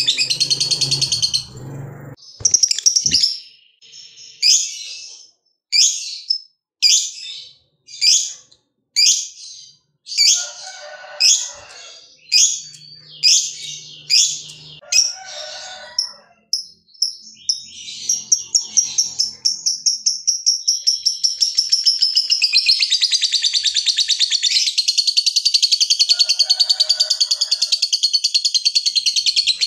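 Lovebird calling: a series of short, sharp, high chirps, about one or two a second, then, about halfway in, a long, fast, unbroken chattering trill. This long trill is the 'ngekek panjang' that keepers prize in fighter lovebirds.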